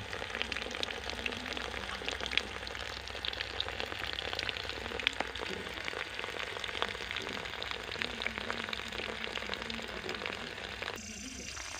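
Homemade battery-powered DC-motor water pump running, its outlet stream pouring and splashing into a puddle of water: a dense, steady crackling spatter.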